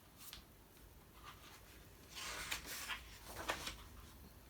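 Soft rustling and rubbing of paper as a picture book's page is handled and turned, with a few light clicks and a brief burst of rustle about two seconds in.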